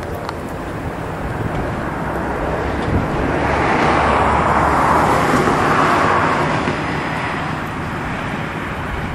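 A road vehicle passing by: an even rushing noise that swells to a peak about halfway through and fades away.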